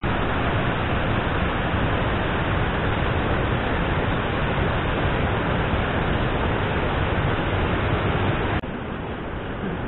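Steady, even rushing noise with no distinct events, heaviest in the low end, dropping slightly in level about eight and a half seconds in.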